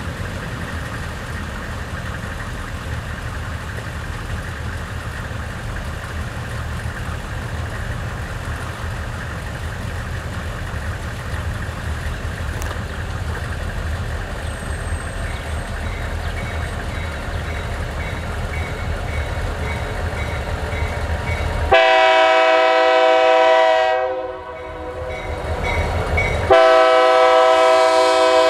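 Three EMD GP40-3 diesel locomotives approaching with a steady low engine rumble, while a grade-crossing bell starts ringing faintly about halfway through. About 22 seconds in, the lead locomotive's air horn sounds a long chord blast, breaks off, then sounds a second long blast near the end for the crossing.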